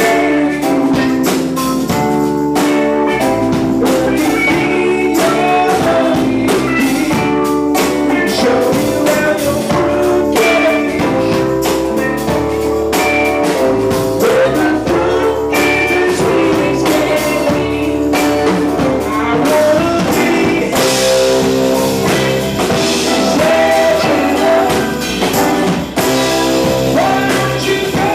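Live band playing a blues-rock song, with electric guitar, drum kit and singing over a steady beat; cymbals wash brighter about two-thirds of the way through.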